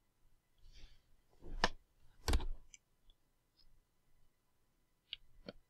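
Scattered clicks of a computer mouse: two sharper clicks between one and two and a half seconds in, a few faint ticks after them, and a pair of clicks near the end.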